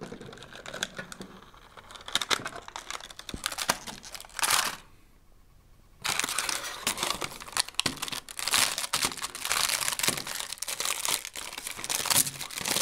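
Toy packaging being unpacked: clicks and rattles of a hard clear plastic case, then, after a short pause about five seconds in, steady crinkling of a thin plastic bag.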